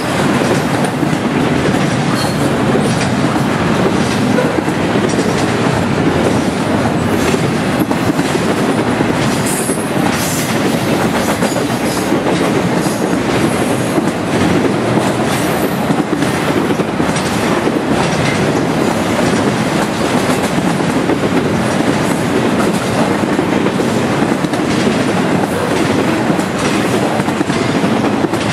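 Norfolk Southern intermodal freight train's cars rolling past: a loud, steady rumble of steel wheels on rail with a constant clickety-clack of wheels over rail joints.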